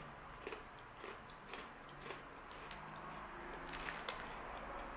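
Mouth-close chewing of small crunchy protein crackers, with short crisp crunches every half second or so.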